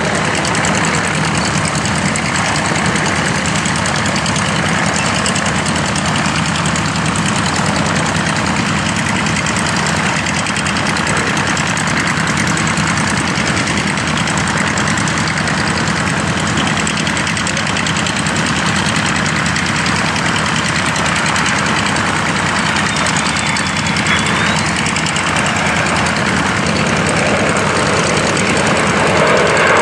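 Belgian Air Force F-16's Pratt & Whitney F100 jet engine, a loud, steady jet noise that holds an even level without rising or falling.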